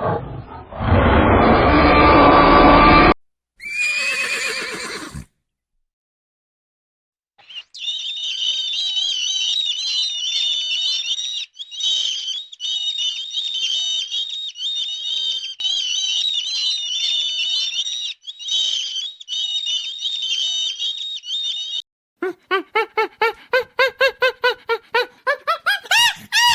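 A run of different animal calls: a loud, deep call for the first few seconds, then after a brief silence a long stretch of high-pitched bird chirping, and near the end quick repeated calls, several a second.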